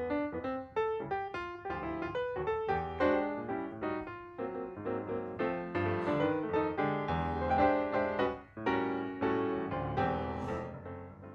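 Background piano music, a flowing run of notes that fades out near the end.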